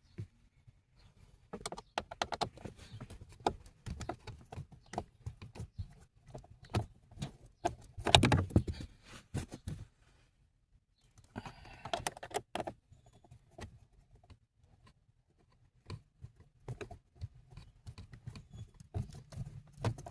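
Irregular clicks, knocks, rattles and scrapes of hand tools and plastic parts being worked under a car dashboard as the blend door actuator is unscrewed and pulled out, with a louder cluster of knocks about eight seconds in.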